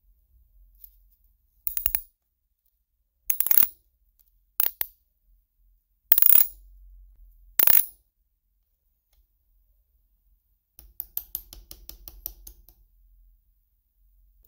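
A nut driver's socket turning a rusty nut off the spool shaft of an old cast-iron fishing reel, as five short metal scrapes a second or so apart. About eleven seconds in, the freed nut drops onto the wooden bench and bounces and rattles to rest in a quick run of clinks that dies away.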